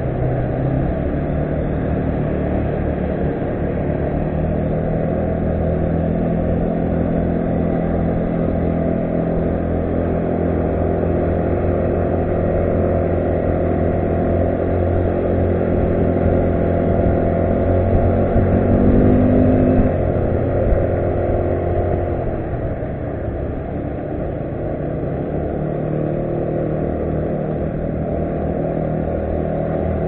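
Yamaha Cygnus RS 125 scooter engine running on the move, a steady engine note whose pitch and loudness climb over a few seconds about two-thirds of the way through, then fall away as the throttle is eased.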